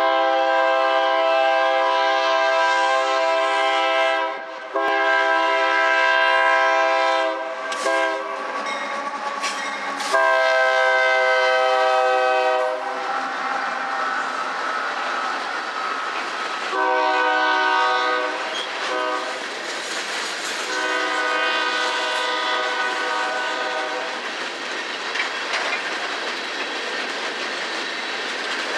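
Union Pacific diesel locomotives sounding a multi-note air horn in several long blasts, then passing by. An empty coal train's gondolas follow, rolling past with steady wheel noise and clicking over rail joints. The horn sounds twice more in the second half.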